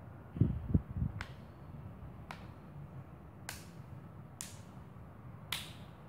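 Plastic back cover of a Samsung Galaxy Note 4 pressed on around its edges, its clips snapping into place with a sharp click about once a second. Two low thumps of the phone being handled come about half a second in.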